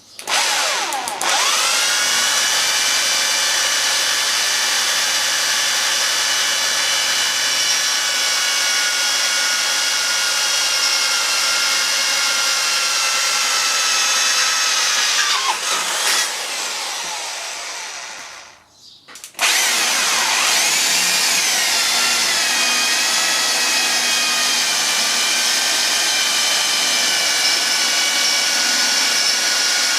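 Electric hand drill drilling metal: the motor whine starts up and runs steadily, dips in pitch and winds down to a brief stop a little past halfway, then starts again with a swoop in pitch and runs on.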